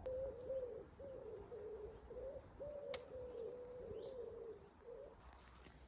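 A pigeon cooing in a low, wavering phrase repeated several times, stopping about five seconds in. There is a single sharp click about three seconds in.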